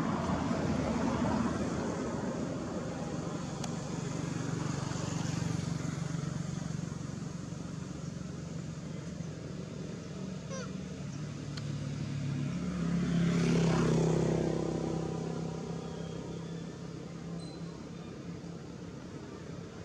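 A vehicle engine droning, swelling to its loudest about two-thirds of the way through as it passes, then fading away.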